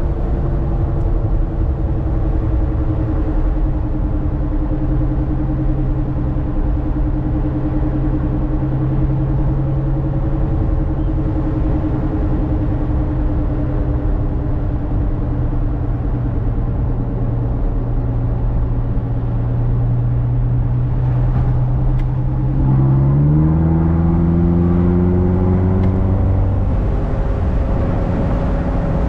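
Ferrari California's 4.3-litre V8 running at steady cruising revs over tyre and road noise, its pitch sagging slowly. A little over 20 seconds in, the revs climb quickly and the engine gets louder as the car accelerates, then settle again.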